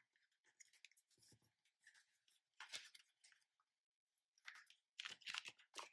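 Faint rustling and crinkling of cardstock being handled, as a taped side strip is pressed onto the edge of a box panel. There are a few soft scrapes, then a denser run of them near the end.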